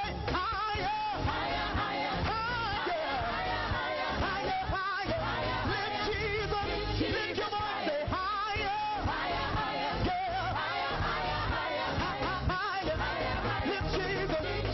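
Praise and worship song: sung voices with vibrato over a band with a steady beat and bass.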